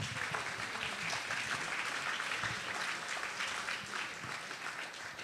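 Audience applauding, a steady patter of many hands clapping that fades toward the end.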